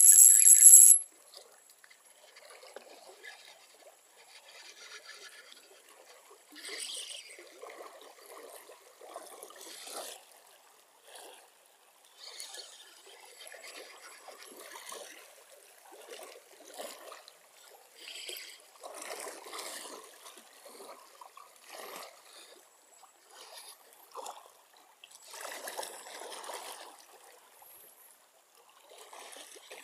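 Shallow stream water trickling and lapping in irregular surges, with a loud splash in the first second.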